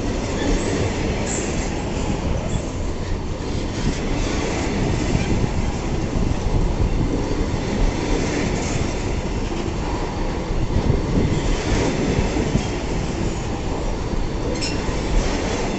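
Freight wagons of a pulp train rolling past close by: a steady rumble of steel wheels on rail, with clicks over the rail joints and a few brief high wheel squeals, one near the end.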